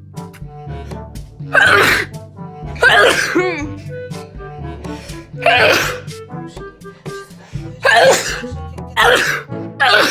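A person sneezing five times in a row, a second to two and a half seconds apart, over steady background music.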